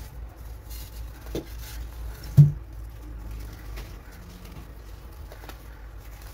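Chunks of baking soda crumbling and crunching between fingers into loose powder, with soft scattered crackles. A brief low thump about two and a half seconds in is the loudest sound.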